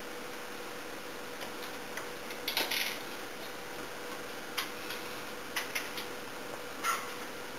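Computer keyboard typing: irregular key clicks, a quick cluster about two and a half seconds in and a few single clicks later, over a steady background hiss.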